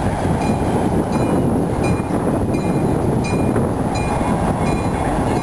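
Tri-Rail commuter train rolling past close by, a loud steady rumble of wheels on the rails.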